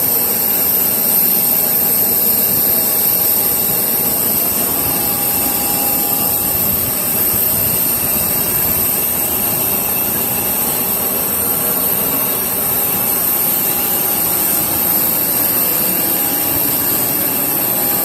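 Jet airliner engines running steadily: an even rush of noise with a high whine on top.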